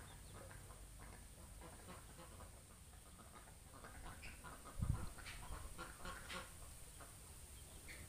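Poultry calling faintly in many short, scattered calls, busiest from about four to seven seconds in, with a single low thump near five seconds.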